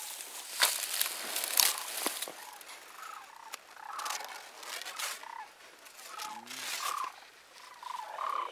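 Sandhill cranes calling overhead: a flock's rolling, rattling calls repeating again and again. Dry grass rustles close to the microphone, with a few sharp clicks in the first couple of seconds.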